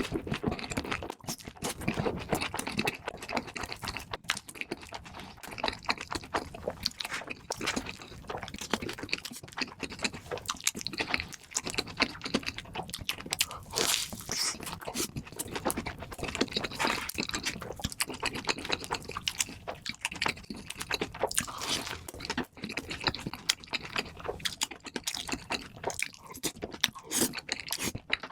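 Close-miked chewing and biting into crunchy food, with a quick, irregular run of crunches and wet chewing.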